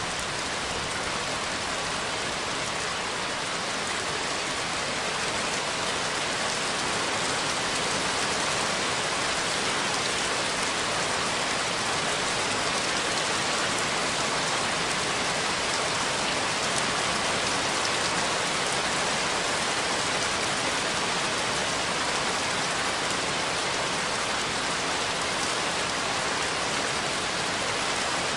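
Steady rain falling: an even, unbroken hiss of drops with no thunder.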